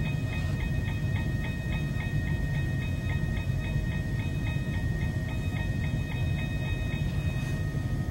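Toy railroad crossing gate's warning bell ringing in rapid repeated dings, about five a second, while the crossing lights flash and the gate arm lowers; the ringing drops away near the end.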